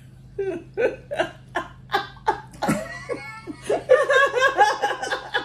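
A woman laughing heartily in short repeated bursts, turning higher-pitched and more sustained about halfway through.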